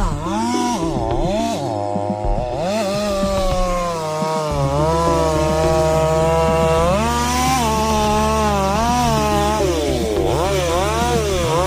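Two-stroke chainsaw running in a cut, its engine pitch rising and falling as the chain bogs and frees in the wood. A steady low drone joins it about four and a half seconds in.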